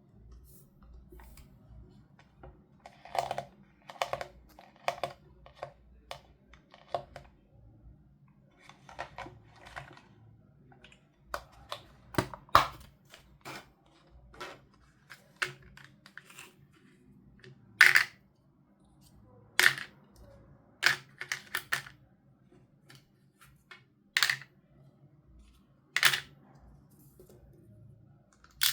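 Small plastic toy pieces clicking and tapping as they are handled and set down: irregular sharp clicks, a few of them louder in the second half.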